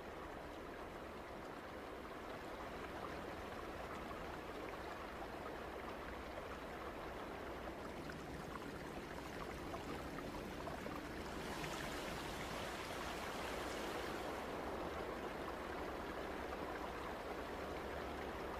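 Flowing water, a stream running steadily, briefly louder and hissier for a few seconds a little past the middle.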